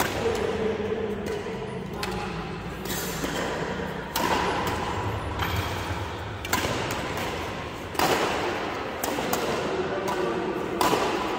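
Badminton rackets striking the shuttlecock during a doubles rally: sharp cracks at irregular gaps of about one to two seconds.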